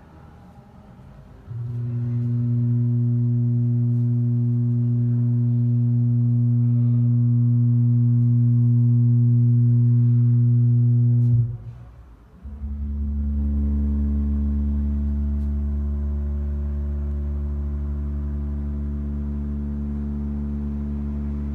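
A low, steady electronic drone tone with overtones starts about a second and a half in and cuts off abruptly near the middle. After a brief gap a second, lower drone starts and holds steady.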